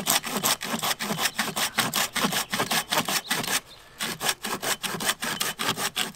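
Folding pruning saw cutting through a small dead aspen log in quick, even back-and-forth rasping strokes. There is a short pause a little past halfway, then the strokes resume.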